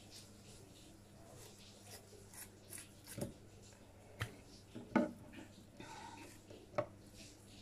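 Kitchen scissors snipping through raw salmon: soft cutting ticks with four sharp clicks at irregular intervals as the blades close.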